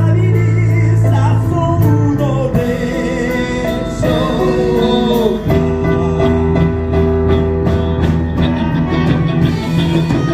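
A song playing: a wavering singing voice over sustained instrumental chords and a steady beat, with the voice dropping out about halfway through while the accompaniment carries on.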